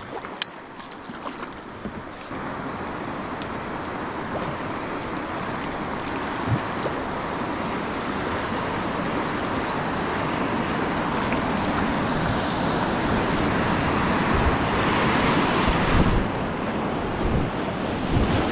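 Rushing whitewater rapids that grow steadily louder as the canoe runs into them, with a few low thumps near the end. There are a couple of light knocks at the start.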